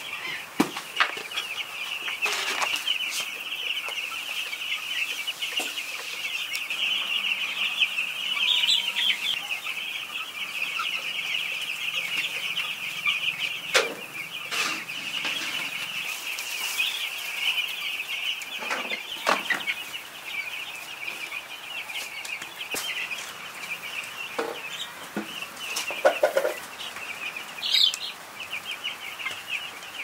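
A large flock of broiler chickens in a shed, many birds calling at once in a steady high chorus. Scattered sharp knocks and clatters sound over it every few seconds.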